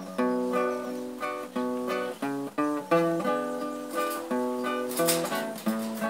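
Acoustic guitar playing an instrumental interlude between sung verses: a picked melody over chords, a few notes a second, with some strummed chords.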